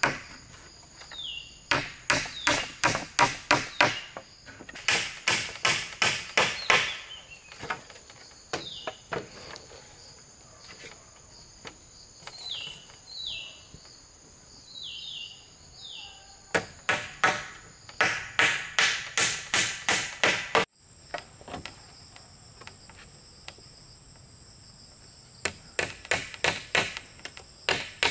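Claw hammer driving nails through split bamboo slats into a bamboo frame, in quick runs of about four blows a second with pauses between. Insects buzz steadily underneath.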